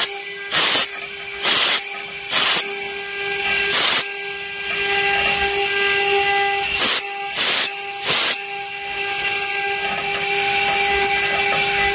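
SD-1325 stone CNC engraving machine carving a stone slab under water coolant: a steady high spindle whine over a constant hiss of cutting and spraying water. Seven short, louder hissing bursts break in, four in the first four seconds and three more a little past the middle.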